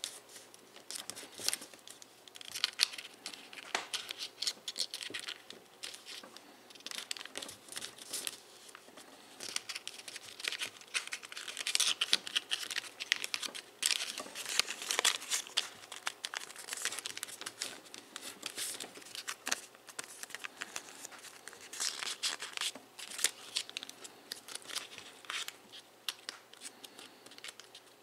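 Camouflage-printed foil paper crinkling in quick, irregular crisp rustles as hands fold and crease it into an origami model.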